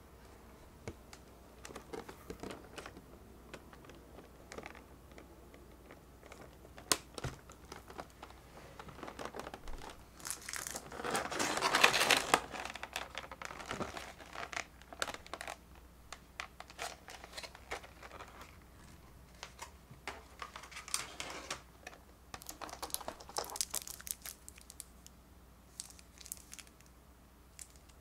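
Stiff clear plastic packaging trays crinkling and clicking as they are handled and lifted out of a cardboard box, with scattered small taps and a longer, louder rustle about twelve seconds in.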